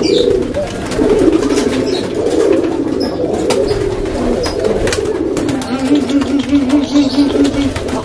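Domestic pigeons cooing, several overlapping, the courtship cooing of young cocks pairing with hens; near the end one call breaks into a quick run of short even pulses.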